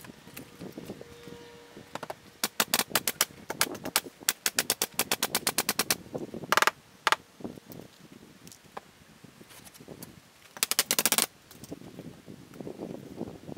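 A power fastening tool working on a timber-framed wall: a quick run of sharp clicks, about six to eight a second for some four seconds, then short dense rattling bursts about six and a half and eleven seconds in.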